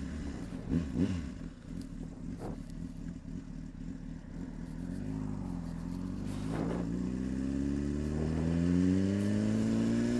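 Honda CBR600RR's inline-four engine pulling in first gear: low and uneven at first, then engine speed climbing steadily through the second half.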